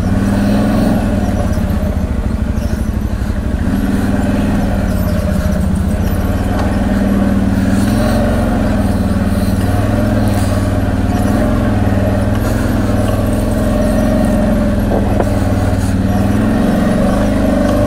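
CFMoto X8 ATV's V-twin engine running steadily under throttle on a rough trail, its pitch rising and falling a little as the throttle changes.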